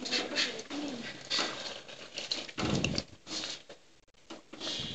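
Wooden spatula stirring and scraping thick meat-and-potato curry masala in a metal pot, with hot water poured in and splashing a little past halfway through, thinning it into gravy.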